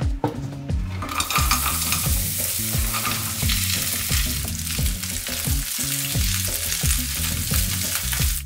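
Cubes of bread tipped into hot fat in a frying pan, sizzling loudly from about a second in and frying steadily into croutons as they are stirred with a wooden spoon.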